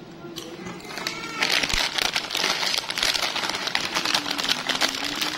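Plastic snack-chip bag (Piattos sour cream and onion) crinkling and crackling as a hand grabs and rummages in it, starting about a second and a half in.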